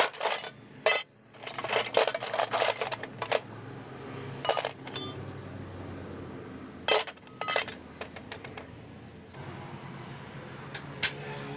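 Loose steel scrap parts (bolts, nuts, springs and a circular saw blade) clinking and clattering against each other and a rusty steel tray as they are rummaged through by hand. The clinks come in quick clusters, busiest in the first three seconds, then a few more at about four and a half and seven seconds.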